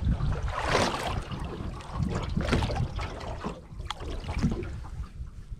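Water splashing and rushing along a boat's hull in irregular surges, with wind buffeting the microphone.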